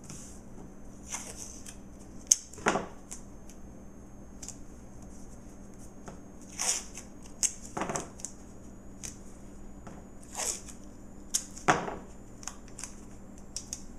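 Blue painter's tape being pulled off its roll, torn and pressed down onto a plastic sheet by hand: scattered short rips and rustles, with a sharp click a little over two seconds in.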